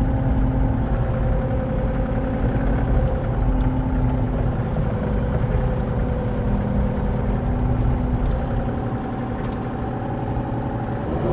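Diesel engine of a small earthmoving machine running steadily while it pushes dirt, its pitch dipping and rising slightly a few times.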